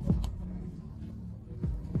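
Tension music bed from a TV game show round: a low electronic drone under deep thumps that fall in pitch. The thumps come in pairs about a third of a second apart, one near the start and a pair near the end.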